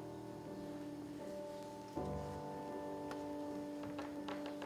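Slow, quiet instrumental music of held chords, with a new chord coming in about two seconds in. A few faint clicks are heard near the end.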